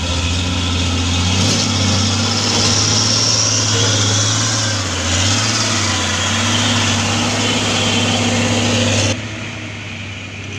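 Diesel engine of a Mitsubishi Fuso 6x4 dump truck running at low speed as it crawls through mud and passes close by, its note dipping briefly and picking up again midway. About nine seconds in the sound drops suddenly to a fainter, more distant engine hum.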